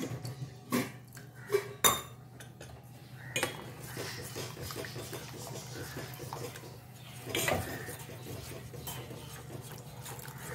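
A steel spoon stirring thickening ragi soup in a metal pot, scraping and clinking against the sides. A few sharper clinks come in the first two seconds, the loudest about two seconds in, with another near the middle. The stirring is constant because ragi lumps if the stirring stops.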